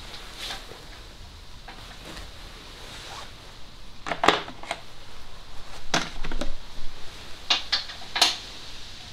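Spanner clinking and knocking against metal: a handful of sharp metallic clicks, the loudest about four seconds in and a quick cluster near the end.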